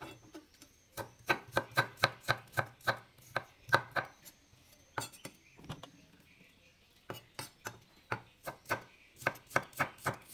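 Kitchen knife slicing fresh ginger into matchsticks on a wooden cutting board: quick sharp knocks of the blade on the board, about three a second, in two runs with a short pause in the middle.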